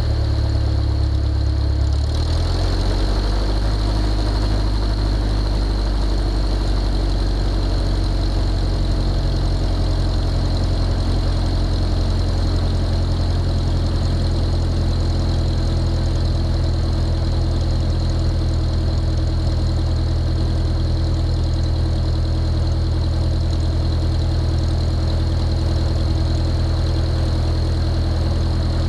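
Husky A-1C's piston engine and propeller running at a steady low taxi idle, a constant low drone; the low engine note shifts slightly about two seconds in.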